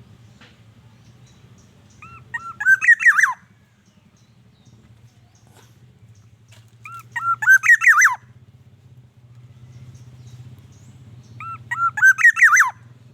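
Black-naped oriole (kepodang emas) calling: three short phrases of fluty whistled notes, each just over a second long and a few seconds apart, over a faint steady low hum.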